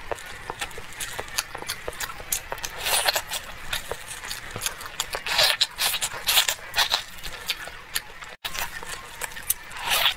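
Close-up mouth sounds of eating braised pork with its fatty skin: wet smacking and chewing, with irregular sharp clicks and short squelches. The sound cuts out for an instant about eight seconds in.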